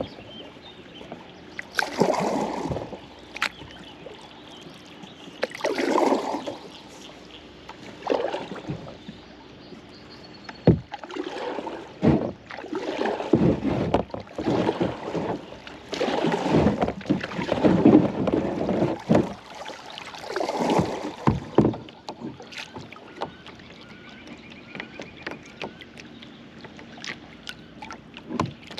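Kayak paddle strokes in river water: a splash and swish as the blade dips and pulls, repeating every two to four seconds. The strokes stop after about twenty seconds, leaving a quieter stretch of water sound.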